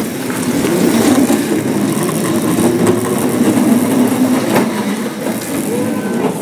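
A vehicle's motor running steadily, its pitch wavering slightly.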